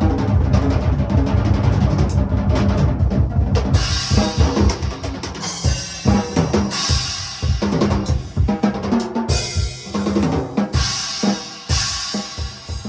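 Drum kit solo: fast, dense rolls with bass drum in the first few seconds, then sparser, separate hits.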